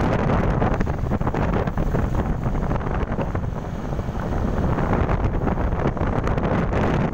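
Wind buffeting the microphone of a moving motorcycle, a steady loud rumble with the bike's engine and road noise underneath, easing a little about halfway through.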